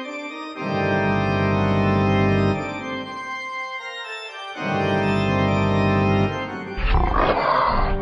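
Organ music on the soundtrack: two long low chords, each held about two seconds, with a short rough noisy burst about seven seconds in.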